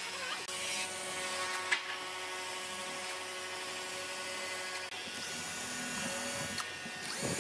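Cordless drill running under load as it bores into pine slats: one long run of a few seconds, a brief stop about five seconds in, then a second, shorter run.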